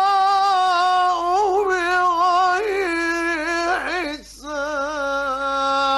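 A male Quran reciter's voice in the melodic mujawwad style. It holds a long steady note, then runs through quick ornamental turns. After a short breath about four seconds in, it settles into another long held note.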